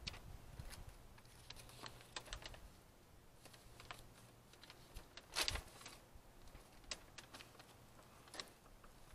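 Faint rustling of a paper instruction sheet being handled, with scattered small clicks and one louder crackle about five and a half seconds in.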